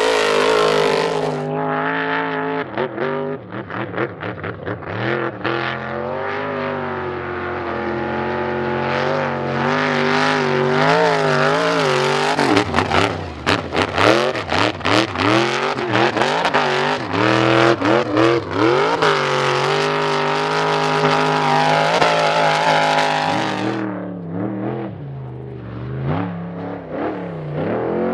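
Desert off-road racing Trophy Trucks and a Class 1 buggy running hard through dirt turns, their engines revving up and down with throttle lifts and gear changes so the pitch swings constantly. About halfway through, the engine note breaks into rapid choppy blips. It falls away briefly near the end before another engine comes in.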